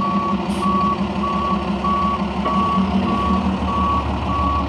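Garbage truck's reversing alarm beeping at a steady pace, about eight beeps at one pitch, over the diesel engine running.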